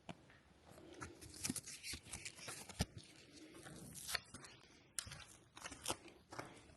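Faint footsteps crunching and scuffing over a gritty, debris-strewn floor, with irregular small clicks and scrapes.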